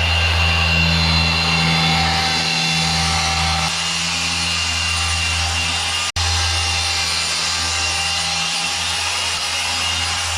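Handheld power tool running steadily, with a sharp break about six seconds in.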